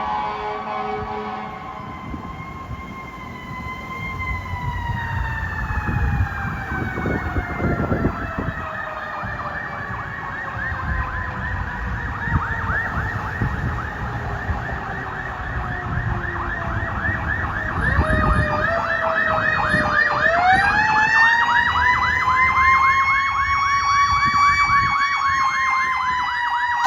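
Fire engine's siren. A steady air-horn chord ends about a second in. The siren then slowly winds down in pitch for some fifteen seconds, winds back up sharply about eighteen seconds in and holds high with a fast pulsing warble over truck engine rumble.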